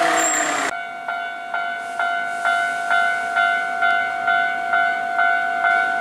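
Japanese railway level-crossing warning bell ringing in a steady, even rhythm, a bit over two strokes a second. It opens with a brief rush of passing-train noise under the bell that cuts off abruptly within the first second.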